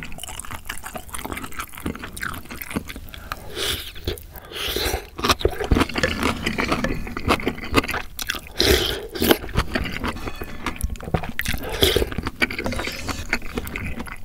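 Close-miked eating: chewing and slurping spoonfuls of ramyeon soup with rice and sausage slices, with small clicks of the spoon against the bowl and louder slurps a few times.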